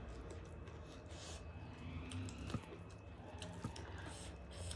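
Close-miked chewing of rice and egg curry, with small wet mouth clicks and scattered soft ticks; near the end, fingers squish and mix rice and curry on the plate.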